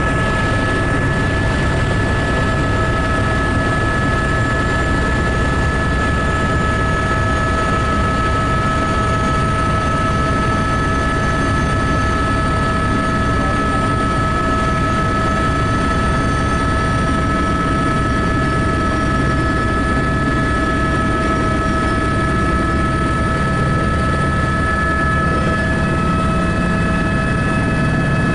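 Helicopter engine and main rotor heard from inside the cabin on the approach to land: a steady, unbroken drone of rotor noise with a constant high whine over it.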